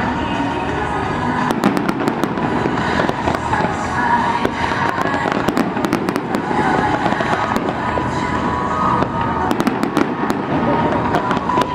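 Fireworks display going off continuously: a dense stream of sharp cracks and crackling, with voices of onlookers underneath.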